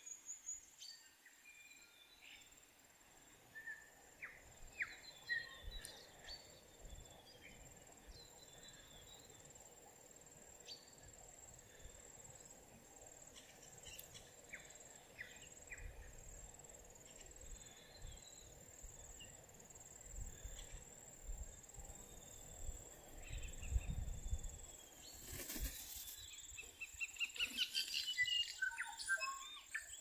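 Common starlings singing: scattered whistles, clicks and chirps, building near the end into a quick rattling run of notes.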